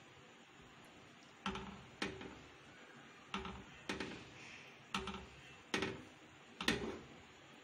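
A spatula knocking and scraping against a nonstick frying pan seven times, each stroke ringing briefly, while a milk mixture is stirred.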